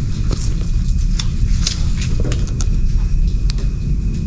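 Footsteps crunching through dry leaves and twigs in undergrowth: scattered sharp crackles over a steady low rumble.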